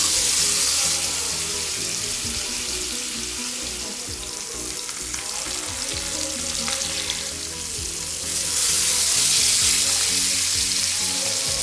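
Marinated pearl spot fish sizzling as it shallow-fries in hot oil, a steady spitting hiss that eases off mid-way and swells louder again about eight seconds in.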